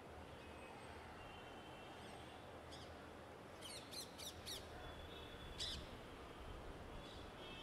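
Birds calling over a steady, faint hum of distant city traffic. A few soft chirps come first, then a quick run of four sharp, high, falling calls about halfway through and a louder shrill call a second later.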